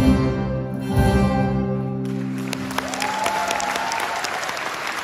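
A Kazakh folk-instrument ensemble strikes its last notes and lets the final chord ring out and fade. Audience applause starts about two seconds in and grows over the dying chord.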